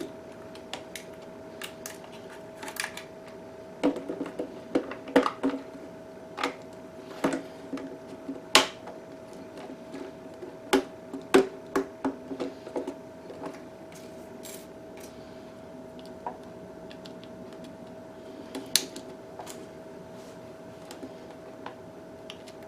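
Scattered clicks and light knocks of hard plastic as an RC truck's body is handled and fitted onto the chassis, over a steady faint hum.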